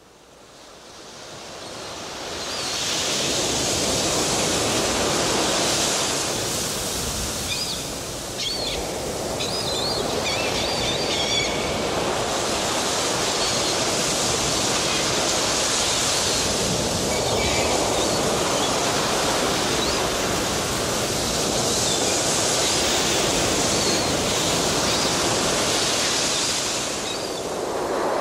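Ocean surf washing in and out, fading in over the first few seconds and then swelling and easing slowly, about every ten seconds. A few short high chirps sound faintly about a third of the way in.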